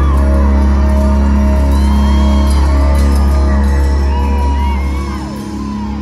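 Live rock band playing a slow, sustained passage over a loud held bass drone, which drops away about five seconds in. Audience members whoop over the music.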